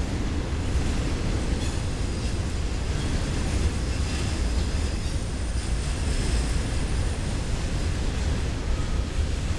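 Intermodal freight cars rolling past at speed: a steady rumble of steel wheels on the rails, with faint high-pitched ringing from the wheels.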